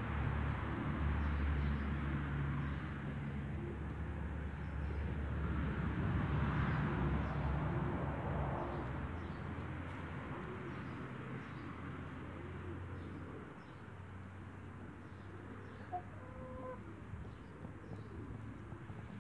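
Light Brahma chickens making soft, low, repeated clucking calls over a steady low rumble.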